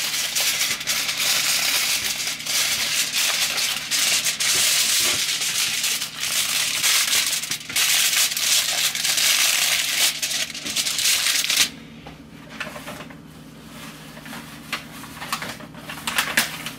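Aluminium foil crinkling and crackling as it is crumpled and rolled by hand into a raised-edge tray. The dense crinkling stops about twelve seconds in, leaving only a few light crackles.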